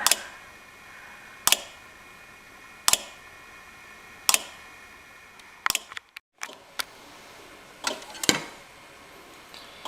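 GE side-by-side refrigerator's main control board clicking over and over, a sharp click about every second and a half. The repeated clicking is the symptom of a failing control board, which also leaves the ice maker and dispenser not working.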